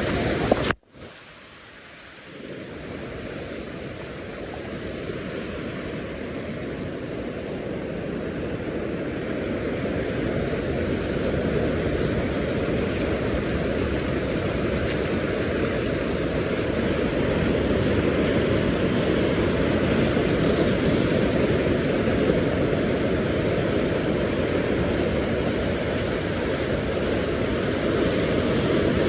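Steady low rushing of wind and surf on an open beach, with no distinct events. It cuts out briefly about a second in and then swells back up over several seconds.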